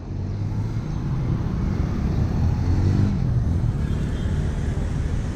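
City street traffic: cars and motorcycles running through an intersection at close range. One engine's pitch rises and falls near the middle.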